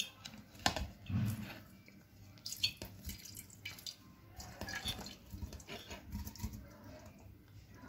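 Cut galgal (hill lemon) pieces dropped by hand into a glass jar onto a layer of salt, landing with a string of irregular soft knocks and wet clicks against the glass.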